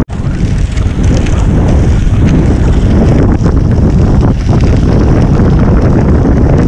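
Heavy wind buffeting on the microphone of a handlebar or chest-mounted action camera while riding a road bike along a gravel path, a steady loud rumble with some gritty tyre noise from the gravel underneath. The sound drops out for an instant at the very start, then comes back.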